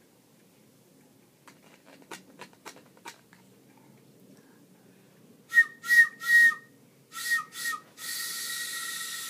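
Breathy whistle: three short toots, three more, then one long held note, after a few faint ticks.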